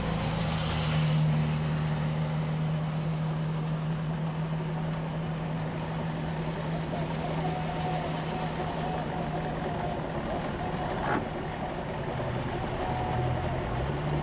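Engine idling with a steady low drone, with a short knock about eleven seconds in.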